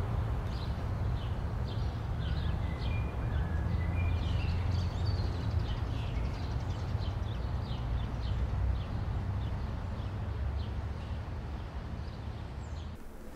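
Outdoor park ambience: small birds chirping in many short, repeated calls with a few brief whistled notes, over a steady low rumble. It all cuts off abruptly near the end.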